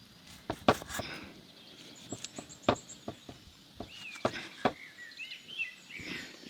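A handful of sharp knocks, irregularly spaced, with small birds chirping in the background, most clearly in the second half.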